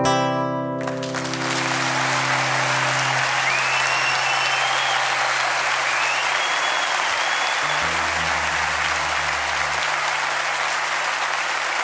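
Final chord of a nylon-string guitar ringing out. About a second in, an audience breaks into steady applause, which carries on to the end.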